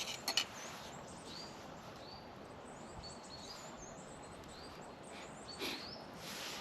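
Small woodland birds chirping and singing, many short high calls. There are two sharp clicks right at the start and a brief rustle near the end.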